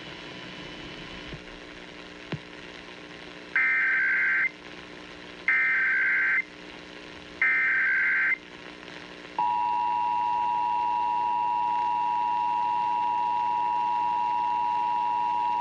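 Emergency Alert System National Periodic Test signal: three evenly spaced bursts of the SAME digital header data, each about a second long, then, from about nine seconds in, the steady dual-tone EAS attention signal, which holds.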